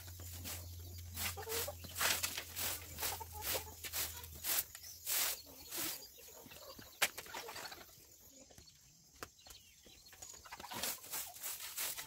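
A broom sweeping a floor in quick, repeated swishing strokes, which stop for a few seconds past the middle and then start again. Chickens cluck in the background.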